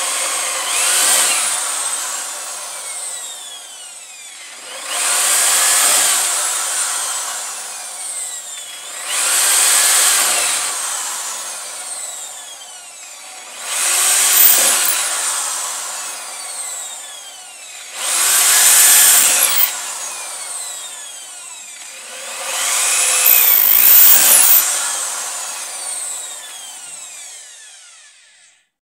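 Corded electric drill boring holes one after another through a wooden board: six loud bouts of drilling about four seconds apart, the motor's whine rising and then falling with each hole, running more quietly in between.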